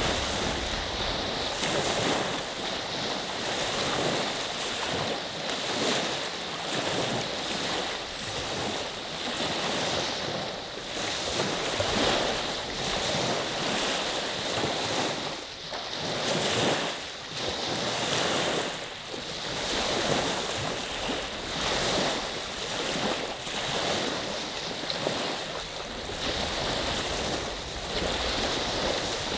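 Waves of Lake Huron's Saginaw Bay washing onto the beach, one surge after another every second or two, with wind on the microphone.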